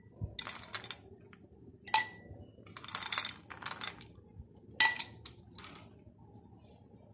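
Ice cubes clinking against glass as they are dropped into a drinking glass from a glass bowl. There are several sharp clinks, the loudest about two seconds and five seconds in, each ringing briefly.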